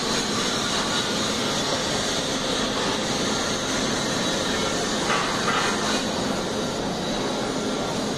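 Steady industrial noise from a gas processing plant: an even, unbroken rushing hiss of machinery and process equipment.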